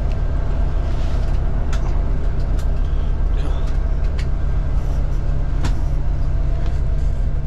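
Steady low rumble inside a coach bus, its engine idling and air conditioning running, with a faint steady hum over it. A few light clicks and knocks are scattered through.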